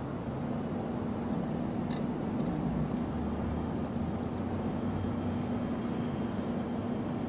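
Steady low rumble of outdoor city background noise with a faint steady hum, and a few faint, short high chirps about a second in and again around four seconds in.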